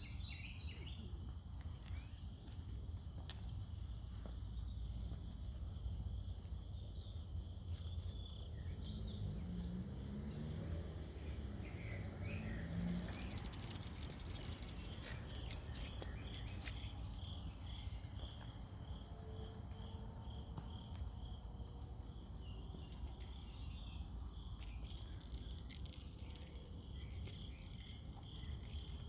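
A steady chorus of insects trilling, high and continuous, with a second, lower pulsing trill growing stronger in the second half, over a low background rumble.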